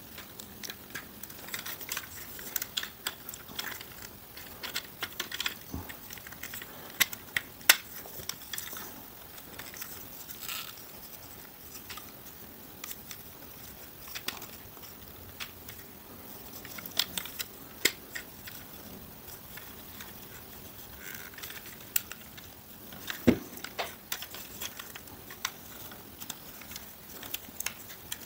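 Hard plastic parts of an oversized Studio Series Ratchet Transformers figure being handled and worked into position, with scattered clicks and snaps; the sharpest snaps come about eight seconds in and again about twenty-three seconds in.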